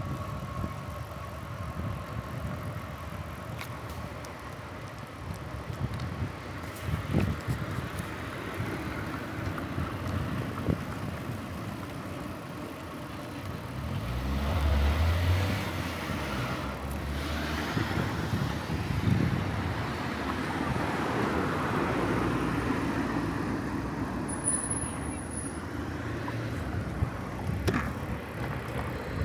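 Road traffic noise heard from a moving bicycle, with a vehicle passing about halfway through.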